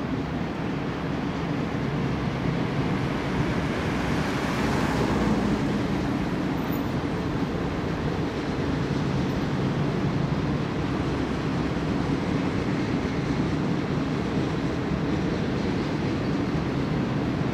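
Freight train flatcars loaded with John Deere combines rolling over an elevated railway overpass: a steady rumble of steel wheels on the rails.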